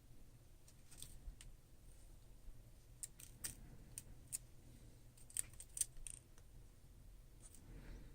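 Faint, scattered light clicks and ticks of small metal repair tools and tiny phone parts being handled during iPhone disassembly, in uneven clusters with short gaps between.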